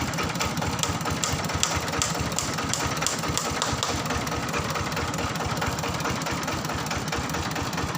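Diesel engine of a mobile rice huller running steadily, with a run of light rapid ticks over the first few seconds.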